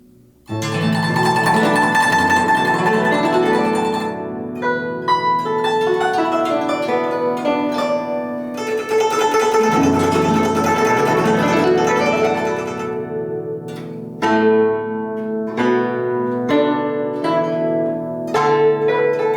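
Instrumental music played on a plucked, zither-like string instrument: chords and melody in phrases that begin about half a second in, with short breaks between phrases.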